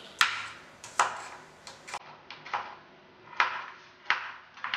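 Kitchen knife slicing shallots on a wooden chopping board: sharp knocks of the blade meeting the board, unevenly spaced at about two a second.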